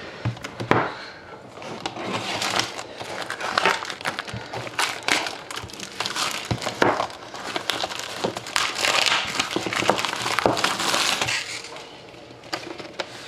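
Plastic shrink wrap being cut off a hockey card box, crinkling and crackling throughout, loudest a little past the middle.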